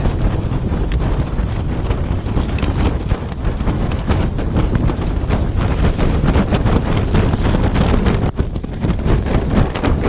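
Tent fabric flapping hard and fast in a wind storm, heard from inside the tent, with wind rumbling on the microphone.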